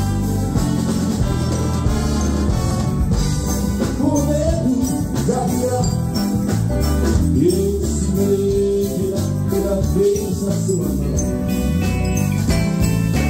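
Live wind band (clarinets, saxophones and brass over bass and drums) playing an upbeat song, with a melody line that rises and falls through the middle.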